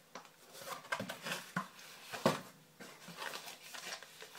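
Packaging rustling and crinkling as tobacco products are taken out of a parcel, with a few sharp clicks and knocks from handling, coming in irregular bursts.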